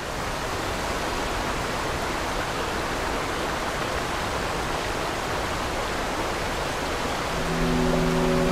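Steady, even rushing noise. Sustained low music notes come in near the end.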